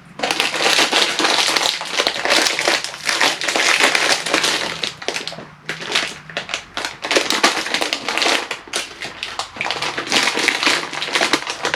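A plastic snack bag of tortilla chips crinkling and crackling as it is handled close to the microphone. It makes a dense run of crisp crackles with a couple of short pauses.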